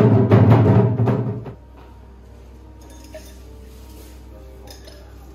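Loud drum-heavy music with a quick regular beat that stops about a second and a half in, leaving a much quieter steady background with a few faint clicks.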